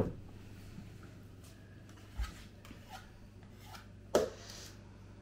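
Quiet kitchen handling: a soft low thump about two seconds in, then a sharp knock of a utensil against kitchenware about four seconds in, over a steady low hum.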